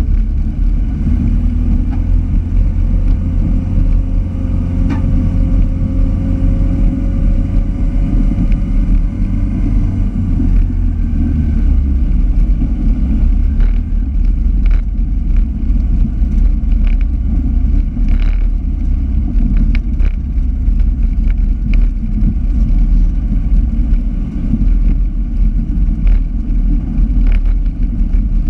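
Racing car engine running hard on a dirt autocross track, heard from inside the cabin: a loud, steady drone with a slowly rising whine over the first ten seconds, then scattered sharp knocks and rattles.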